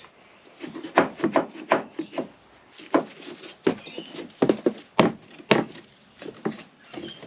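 Irregular wooden knocks and taps of MDF floor panels being handled and pressed into place.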